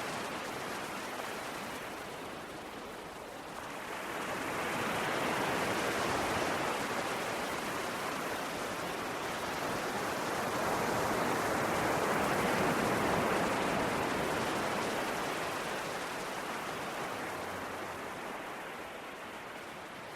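Sea waves washing onto the shore in long, slow surges, swelling about four seconds in and again around twelve seconds, then slowly falling away.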